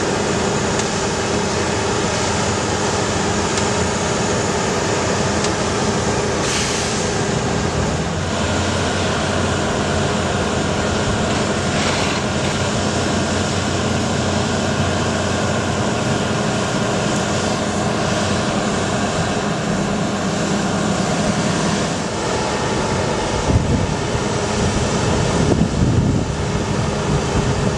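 Bucket truck's engine running steadily to power the Altec AM55-MH aerial boom as it is swung and lowered, with a steady hum. The low end of the sound shifts about 22 seconds in, and there are a few louder jolts in the last few seconds.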